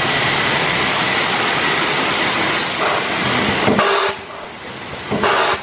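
Automatic vertical packing machine with a volumetric cup filler running, at first a steady loud mechanical noise. In the last two seconds come two short bursts of hiss-like noise about a second and a half apart as the machine cycles through its sachets.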